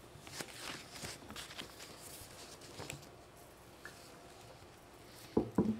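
Quiet room tone at a microphone in a small room, with faint scattered clicks and rustles, and two short, sharper clicks near the end.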